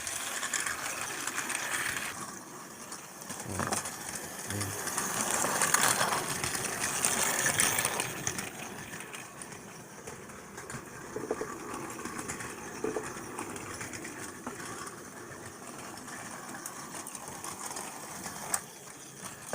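Battery-powered Plarail toy train running on plastic track: the small electric motor whirs and the wheels clatter over the track joints. It gets louder for a few seconds mid-way, then settles back.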